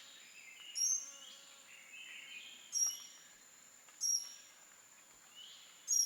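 Tropical forest ambience: four short, sharp, high bird calls spaced about one and a half to two seconds apart, with softer chirps in between, over a steady thin high insect drone.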